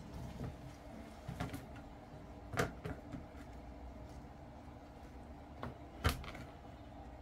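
Asparagus spears being handled at a kitchen counter: a few sharp, short taps or snaps, two louder ones about two and a half and six seconds in, over a low steady hum.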